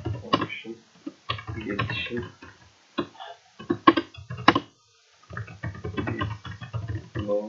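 Typing on a computer keyboard, runs of quick key clicks broken by short pauses, with a low muttering voice between them.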